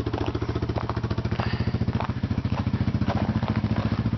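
Honda Fourtrax 350 4x4 ATV's single-cylinder four-stroke engine idling steadily, with an even, rapid beat of firing pulses.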